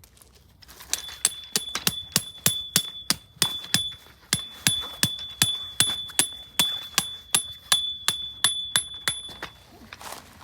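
A metal tent peg being hammered into the ground, about three blows a second with a short pause partway through, the peg ringing with a high clear tone between strikes.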